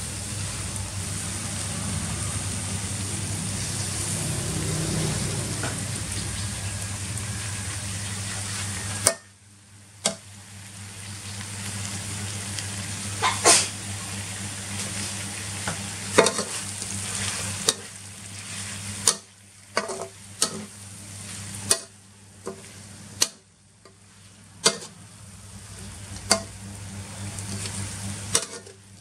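Freshwater eel pieces and fresh green leaves frying in a metal wok: a steady sizzle with a low hum under it that drops off suddenly about nine seconds in. After that, softer sizzling with a spatula scraping and clacking against the wok every second or two.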